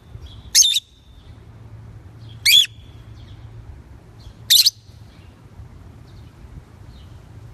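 A featherless pet bird giving three short, sharp, high-pitched chirps about two seconds apart, over a faint low hum.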